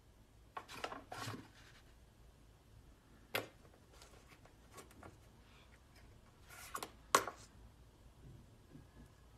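Scattered scrapes, rattles and clicks from a metal security door and its handle as a small poodle hangs on the door's grille and tugs at a rope tied to the knob. The loudest, sharpest clicks come about seven seconds in, just before the door is seen standing open.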